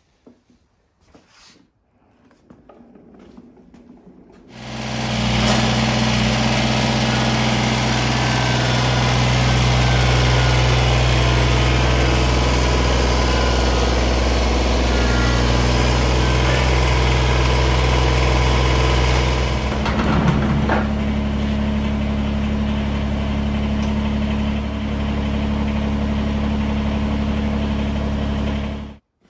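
Kubota BX2380 tractor's three-cylinder diesel engine running steadily, coming in about four seconds in; its tone changes about twenty seconds in.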